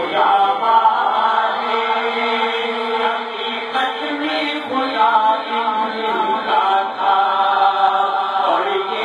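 Male voices chanting an Urdu manqabat in praise of Imam Hussain, a devotional melody with long held and bending notes.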